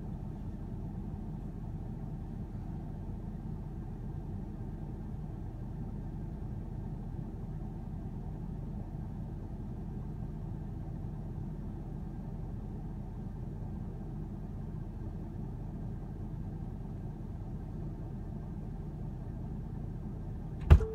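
Steady low rumble of a pickup truck idling, heard from inside the stationary cab, with one sharp knock near the end.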